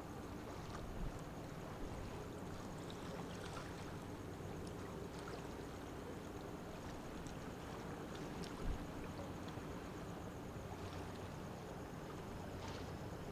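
Steady low hum of a large cruise ship's machinery over a continuous watery wash, with a soft thump about eight and a half seconds in.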